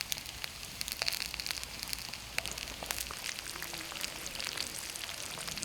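Breakfast sausages and bacon frying: a steady sizzle with many small crackles of spitting fat.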